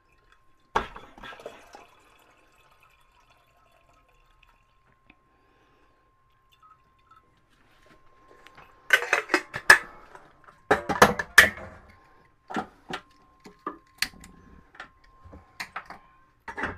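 Kitchenware being handled in a boat's galley: one sharp knock, a long pause, then a run of clinks and clatters of pots, dishes and utensils in the second half. A faint steady high tone sits underneath.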